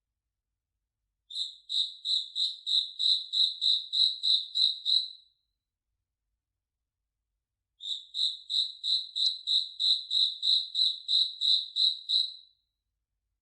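A cricket chirping at one steady high pitch, about three chirps a second, in two runs of roughly four seconds with a pause of about two seconds between them.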